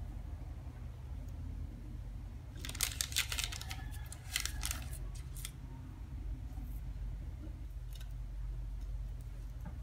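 Parchment baking paper crinkling under the hands as shaped dough balls are set down on it, in two short crackly bursts about three and four and a half seconds in. A steady low hum runs underneath.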